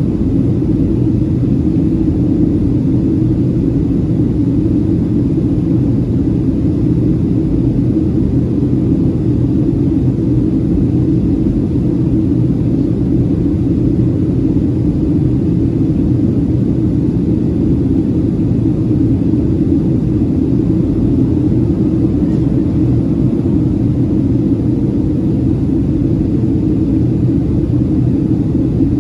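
Steady in-flight cabin drone of a Boeing 737-700, the noise of its CFM56-7B turbofan engines and the airflow heard from inside the cabin. It is a constant low rumble that does not change.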